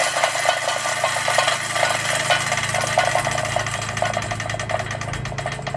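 A hand-spun wheel of a Yardworks 18-inch reel mower coasting freely, with rapid, even clicking from the wheel drive that slows toward the end as the wheel loses speed.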